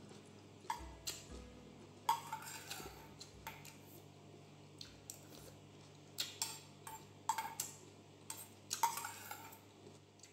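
Metal spoon clinking and scraping against a small stainless steel bowl while eating, in irregular taps scattered through, several with a short metallic ring.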